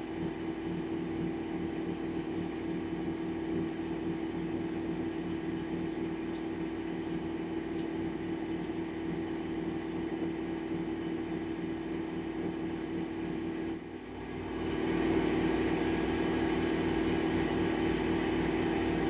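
Steady hum of an electric motor with a low, pulsing throb. About 14 seconds in it dips briefly, then comes back louder and fuller.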